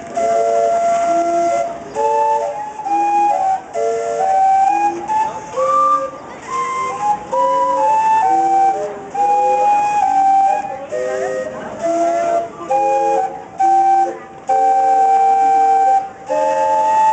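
Steamboat's steam calliope playing a tune, several whistle notes sounding together in chords, with short breaks between phrases.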